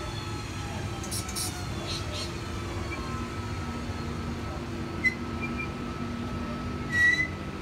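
A V-set double-deck intercity electric train standing at the platform, its onboard equipment giving a steady hum with a few steady tones. There are brief hisses about a second in and a short high chirp near the end.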